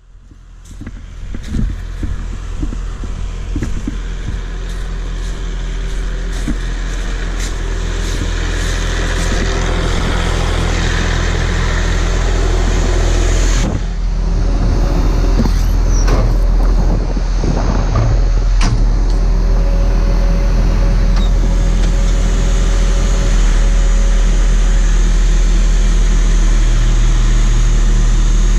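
Engine idling steadily, growing louder over the first several seconds and then holding level, with a few clicks in the first seconds.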